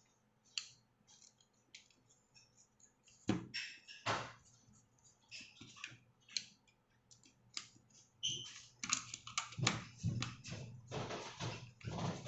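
Irregular light clicks and clatters of small hard objects being handled, sparse at first and much busier in the last few seconds, over a faint steady low hum.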